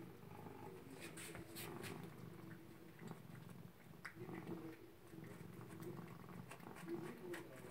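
Domestic cat purring steadily while eating dry kibble, with scattered faint crunching clicks.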